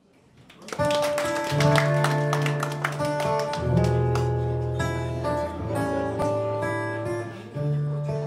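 Live band playing an instrumental intro: strummed acoustic guitar over a bass guitar line, with held accordion notes, fading in over the first second.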